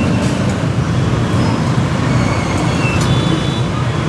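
Steady, loud road traffic noise: a continuous rumble of passing vehicles.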